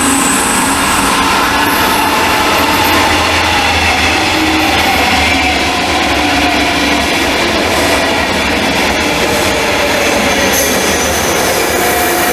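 A push-pull train of double-deck coaches, pushed by an EU47 (Bombardier TRAXX) electric locomotive, passing close by at a steady loud level: wheels rumbling and rattling on the rails, with thin whining tones over it. A few extra high tones come in near the end as the locomotive at the rear goes by.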